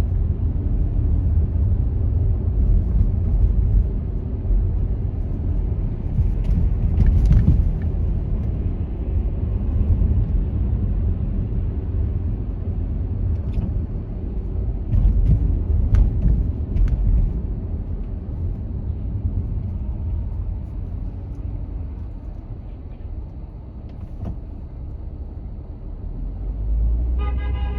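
A car driving in city traffic gives a steady low rumble of road and engine noise, with a few faint knocks. Near the end a pitched tone with several overtones comes in.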